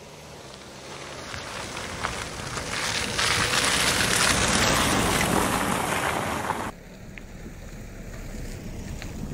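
Mazda CX-5's 2.2-litre diesel and its tyres on wet mud, growing louder as the SUV drives up and passes close, with wind on the microphone. The noise cuts off suddenly about two-thirds of the way through, leaving quieter wind noise.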